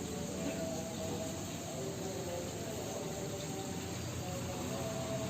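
Steady chorus of insects over constant background noise.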